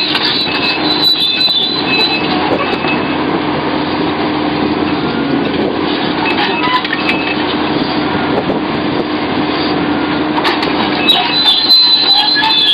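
Sumitomo SH700LHD-5 excavator working: its diesel engine runs steadily under load with a constant hum. A thin high tone comes and goes, and metallic scraping and squealing grows busier near the end.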